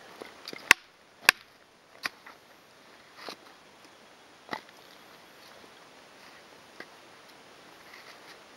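A fixed-blade knife being batoned through kindling with a wooden baton: two sharp knocks about half a second apart near the start, then a few fainter knocks and cracks of splitting wood further apart.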